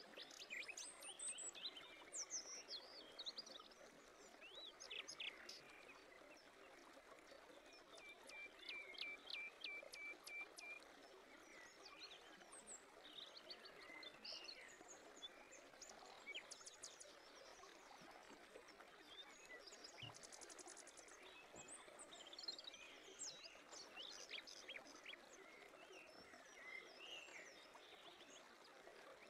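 Faint birdsong: several birds chirping and trilling, with short rising and falling calls and a run of rapid repeated notes about a third of the way in, over a steady background hiss.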